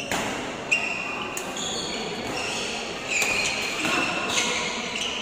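Badminton doubles rally in a hall: a string of sharp racquet-on-shuttlecock hits, irregularly spaced, with short high squeaks of court shoes on the floor and a background murmur of spectators.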